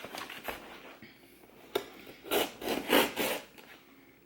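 Hands handling and scraping at a taped cardboard shipping box, with a sharp click and then three or four rasping scrapes in the second half.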